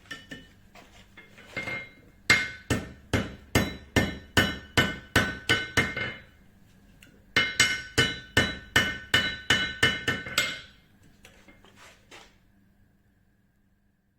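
Blacksmith's hammer forging hot steel, each blow ringing metallically. Two runs of about a dozen strikes at roughly three a second, with a short pause between them and a few lighter taps before and after.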